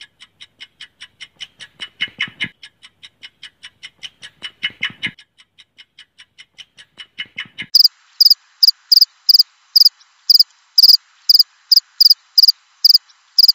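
Cricket chirping sound effects: a run of short, evenly spaced chirps about four a second, then about eight seconds in a louder, higher-pitched cricket chirp takes over at about three chirps a second.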